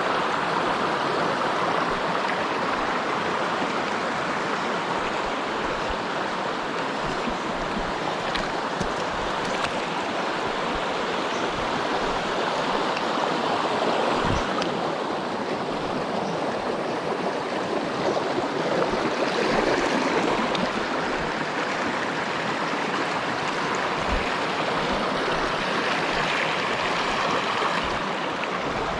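Mountain stream rushing steadily over rocks, with a few brief low knocks now and then.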